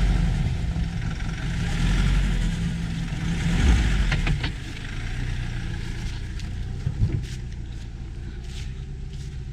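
Off-road vehicle engine running under heavy throttle, then easing off to a lower steady run about four and a half seconds in, with a few short knocks.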